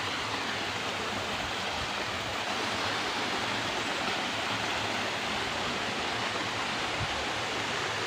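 Steady rush of water from a rocky mountain stream and waterfall, with no distinct events.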